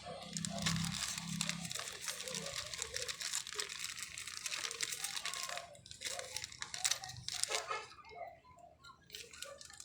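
Plastic packaging crinkling and tearing as it is handled and opened: a steady crackle for about the first six seconds, then a few separate rustles and clicks.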